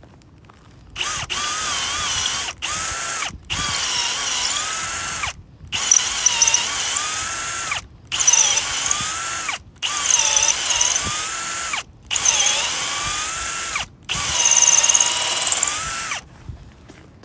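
Power drill running a step drill bit through a thin steel bracket, in about eight trigger pulls of a few seconds each. The motor whine dips in pitch and recovers as the bit bites into the metal.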